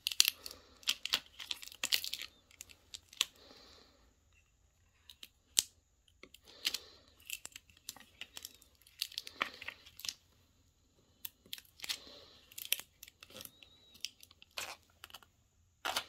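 Clear transfer tape being peeled off the paper backing of a cut vinyl decal: irregular bursts of crackly tearing and crinkling, with scattered sharp ticks between them.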